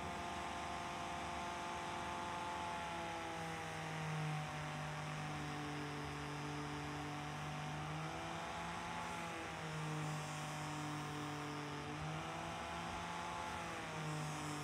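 Vise-mounted angle grinder with a sanding disc running at speed, a steady whine whose pitch sags and recovers several times as the steel knife blade is pressed against the disc.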